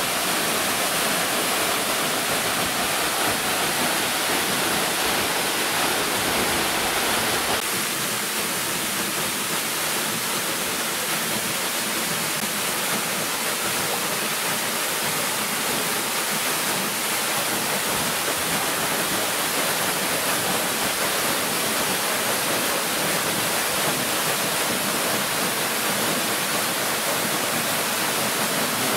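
Rushing water making a steady, even noise. It changes slightly and drops a little about a quarter of the way in.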